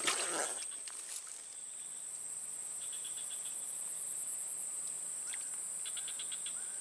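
Steady, high-pitched chirring of insects in the swamp grass. Short repeated chirping calls join in near the end.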